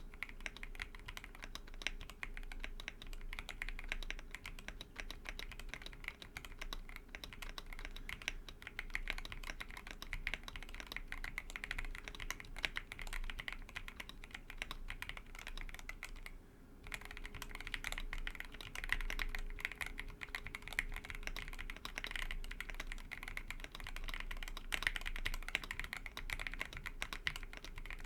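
Continuous typing on a TOFU65 aluminium-case mechanical keyboard with Everglide Aqua King v3 linear switches (67 g springs) and PBT keycaps: a rapid, even stream of keystrokes, with a brief pause about two-thirds of the way through.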